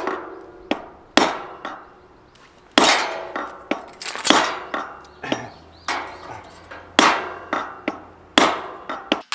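A hammer driving a metal anchor, about a dozen irregular blows, each with a short metallic ring.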